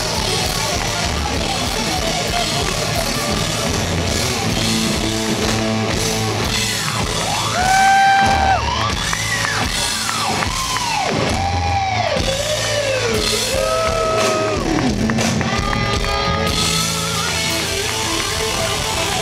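Live rock band playing, led by an Ibanez JS1200 electric guitar over drums and bass, heard in a large hall. In the middle the lead guitar swoops up and down in pitch in a run of arcing glides, one diving very low before the riff comes back.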